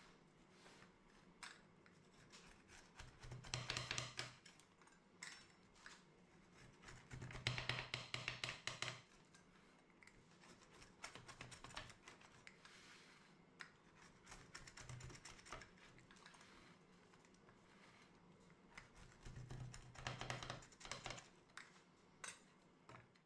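Wheel pizza cutter rolling through a crisp pizza crust against a metal pan: three spells of quick crackling clicks, about three, seven and twenty seconds in, with faint scrapes between.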